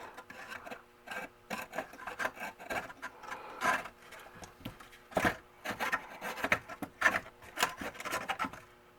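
Toy sawmill model parts being handled and fitted together by hand: irregular scraping, rubbing and clicking as a shed piece is worked into place.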